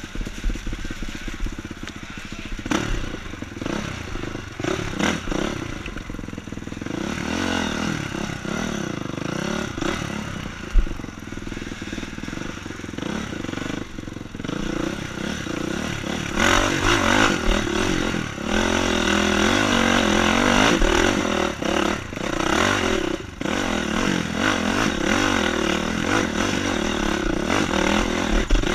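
Honda CRF four-stroke dirt bike engine heard from on the bike, revving up and down as it is ridden hard along a rough trail, with clatter and knocks from the bike over the ground. There is one sharp knock about eleven seconds in, and the engine runs louder from about the middle on.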